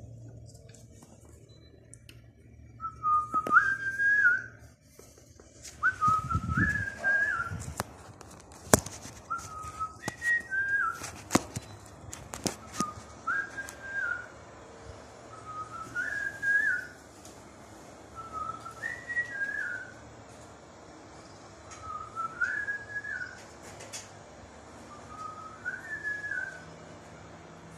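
A short whistled phrase that steps up and falls back, repeated about every three seconds. A few sharp knocks and a low thump about six seconds in.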